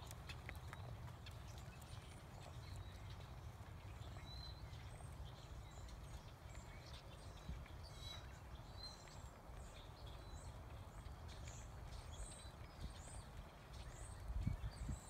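Horse trotting slowly on soft arena dirt, its hoofbeats faint.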